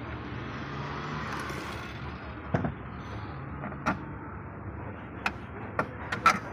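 Clicks and knocks from the metal cover and frame over a Honda Vezel's hybrid battery pack as gloved hands work it loose: about six sharp ones spread over the last four seconds, the loudest near the end.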